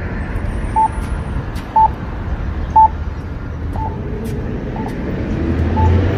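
Pedestrian crossing signal giving a short beep about once a second, a few beeps louder about a second in, over the low rumble of street traffic.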